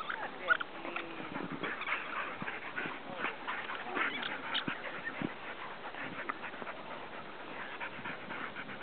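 A pit bull and a Bernese mountain dog puppy wrestling in play: scattered short dog vocal sounds and breathing, with a brief gliding whine-like sound about a second in, among rustling and jostling noises.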